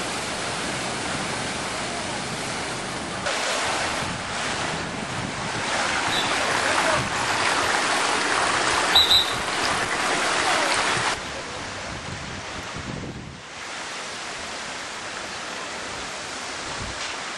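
Steady rushing of water running down water slides and into their pools. It swells for several seconds in the middle, then drops back, with a couple of brief high squeaks in the louder stretch.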